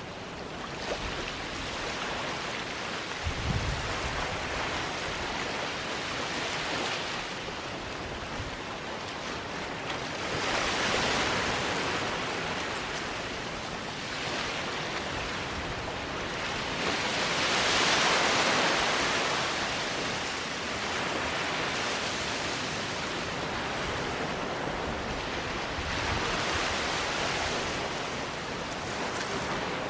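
Small waves washing onto a sandy beach: a steady rush of surf that swells as a wave breaks about ten seconds in and again, loudest, a little past the middle.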